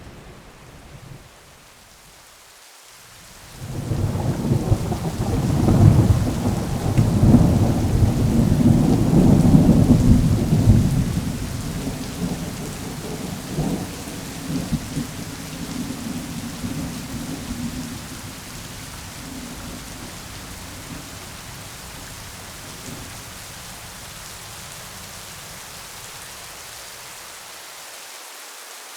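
Thunderstorm: a long rumble of thunder builds about four seconds in, is loudest for several seconds, then rolls away, over steady falling rain.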